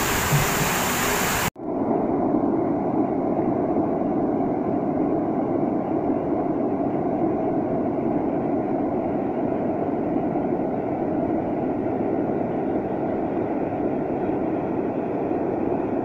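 Steady rushing of a waterfall pouring into a pool. After a brief dropout about a second and a half in, the rush turns dull and muffled, with its hiss gone.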